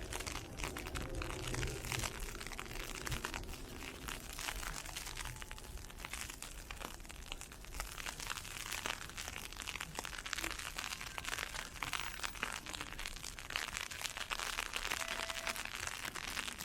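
Ice pellets hitting an umbrella just above the microphone, a dense, unbroken stream of small sharp ticks.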